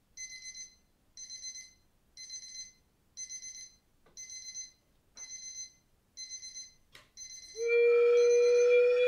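Electronic alarm-clock beeping: short bursts of rapid high beeps, about one burst a second. A little before the end a sharp click sounds and a loud, sustained ringing musical tone comes in and holds, rising slightly in pitch.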